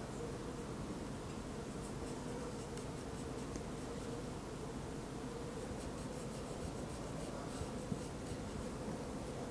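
Soft scratching of a small paintbrush laying oil paint onto the painting in short strokes, over a steady low hum.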